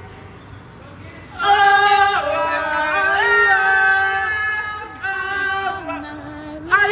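Voices singing long held vowel notes without words, the pitch stepping up and down from one held note to the next. The singing starts about a second and a half in, after a quieter moment.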